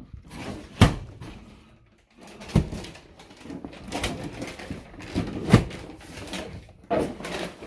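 A series of sharp knocks, about five over several seconds, irregularly spaced, with a fainter clatter between them.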